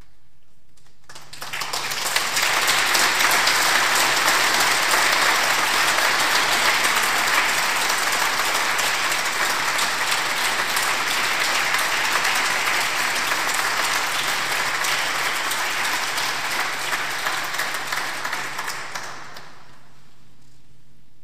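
A congregation applauding. The clapping swells quickly about a second in, holds steady, then dies away near the end.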